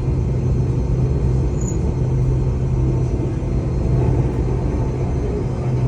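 Enoden electric train running, a steady low rumble with a constant low hum, heard from inside the passenger car.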